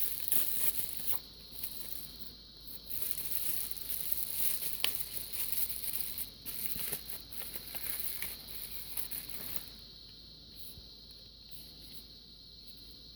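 Rustling and crinkling of packaging with scattered light clicks as knives are unwrapped from their box, dying down about ten seconds in. A faint steady high-pitched whine runs underneath.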